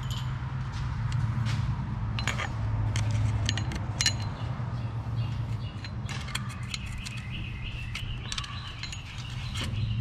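Scattered small metallic clicks and clinks of a steel pick tapping and scraping on the metal rings and pin inside a Ford F-150's automatic 4x4 front locking hub, a few of them ringing briefly. A steady low hum runs underneath.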